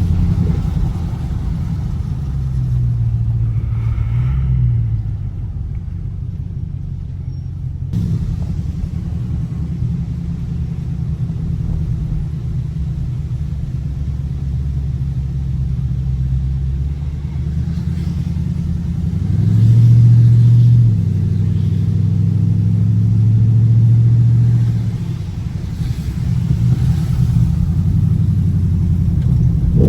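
Dodge Scat Pack's 6.4-litre 392 Hemi V8 running under way as a steady low rumble. It swells louder twice under throttle, about twenty seconds in and again a few seconds later.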